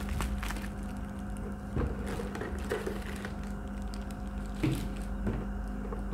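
Bubble wrap crinkling and rustling in sporadic bursts as a wrapped camera is handled and lifted out of a cardboard box, with a few light taps. A steady low hum runs underneath.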